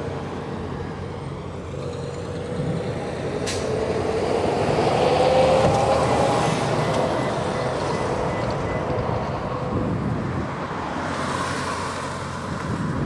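Road and engine noise from a vehicle on the move. It swells to a peak about five seconds in, as from a large vehicle going by, then eases off. There is one sharp click about three and a half seconds in.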